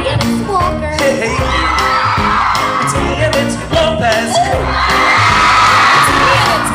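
Live band music on a concert stage with the audience cheering and screaming over it; whoops rise in two swells, heard from within the crowd.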